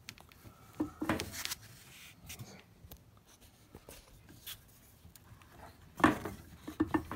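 Rubbing and scraping as PEX tubing is worked onto a brass barbed fitting by hand. There is a burst about a second in, a few small clicks, and a louder cluster of scraping near the end.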